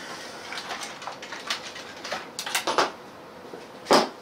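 Light plastic clicks and rattles as the battery is pulled out of a 1/18-scale RC truck, with one sharp knock just before the end as a small part is set down on the table.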